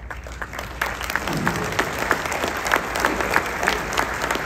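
Audience applauding, the clapping starting up right away and then holding steady.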